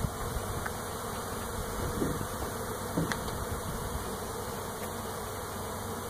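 A honey bee swarm buzzing in the air: thousands of bees flying around and into a bait hive as they move into a new home, a steady drone with a few brief louder buzzes now and then.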